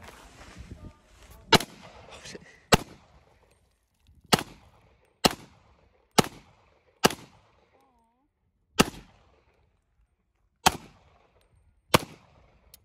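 About nine single pistol shots from a 1911-style handgun, fired one at a time at uneven gaps of one to two seconds, each followed by a short echo.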